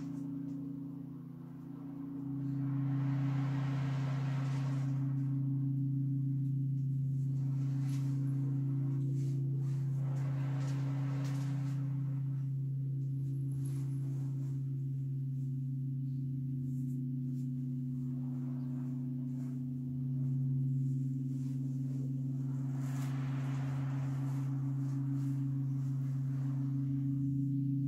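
Alchemical quartz crystal singing bowls sounding long sustained tones, a low tone and a higher one held together; the low tone comes in strongly about two seconds in and swells again around twenty seconds. Soft swishing swells of an ocean drum, its beads rolling as the frame is tilted, rise and fall over the tones three times.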